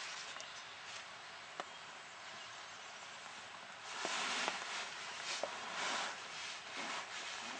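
Dry forest-floor leaf litter rustling and crunching in a series of short bursts starting about four seconds in, with a few sharp snaps among them, like footsteps or scratching in dead leaves.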